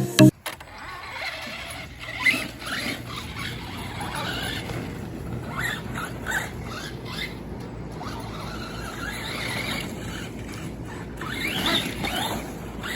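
Traxxas Rustler 4x4 VXL RC truck on a test drive: its brushless electric motor whines up and down in pitch in short bursts as it accelerates and lets off again, over a steady rushing noise.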